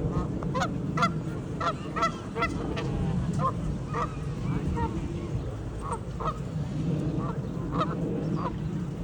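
Canada geese honking: a quick flurry of short honks in the first few seconds, then scattered honks, over a steady low background rumble.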